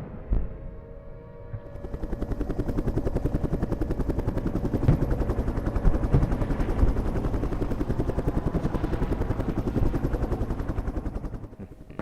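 A rapid, even pulsing of many beats a second, like a rotor or rapid fire. It builds in about a second and a half in and dies away near the end, after a sharp knock at the very start.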